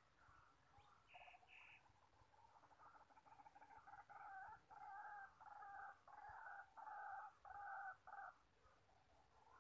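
White-breasted waterhen calls: a quick chattering run, then a series of about seven evenly spaced call notes, roughly one and a half a second, growing louder before stopping.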